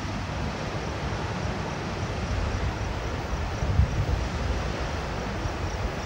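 Steady rush of the flooded Blue Earth River pouring through and around the Rapidan Dam, heard from a distance, with wind buffeting the microphone and one stronger gust a little past the middle.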